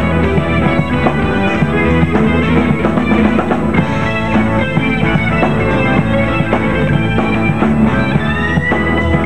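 Live rock band playing: electric bass, acoustic guitars and a drum kit.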